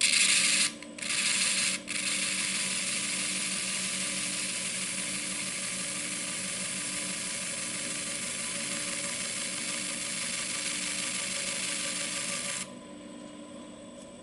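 Pipe stem held against a slow-turning abrasive French wheel: a steady scratchy sanding hiss, briefly lifted off twice in the first two seconds, then stopping suddenly near the end while the wheel's motor hums on at low speed.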